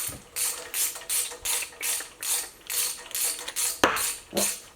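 Hand socket ratchet clicking in repeated back-and-forth strokes, about two and a half a second, backing out the cylinder head bolts on a Ford 302 V8. A sharp metallic knock comes near the end.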